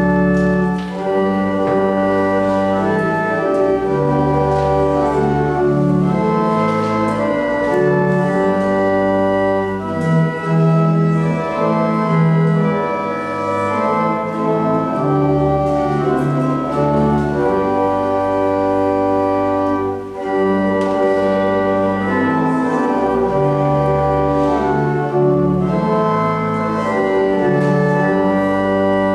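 Organ playing slow, held chords that change every second or two, in a church service.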